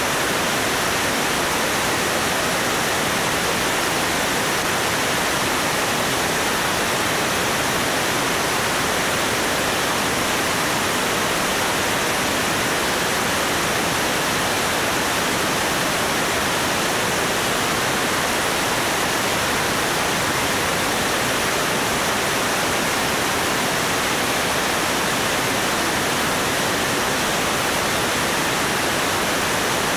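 Steady, even rush of airflow over a camera mounted under the wing of a Cessna 205 cruising at about 160 mph.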